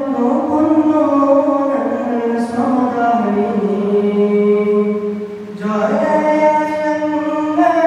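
A man singing a Malayalam memorial song in long, held, sliding notes. He pauses briefly for breath about five and a half seconds in.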